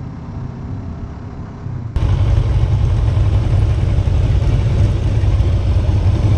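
Kawasaki Ninja 650R's parallel-twin engine running with wind noise on the rider's camera while riding. About two seconds in, the sound cuts abruptly to a louder, deeper, steady rumble.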